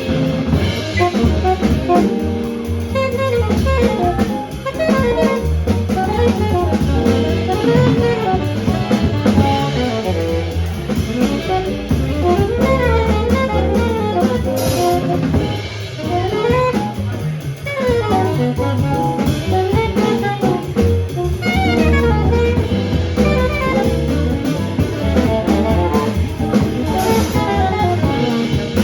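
Live jazz quartet of saxophone, piano, bass and drum kit playing an original tune, with the saxophone carrying a busy, moving melodic line over the rhythm section.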